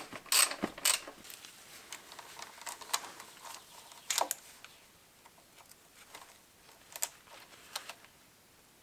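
Irregular light clicks and knocks of parts being handled in a workshop, several close together in the first second and a few more spread through the rest.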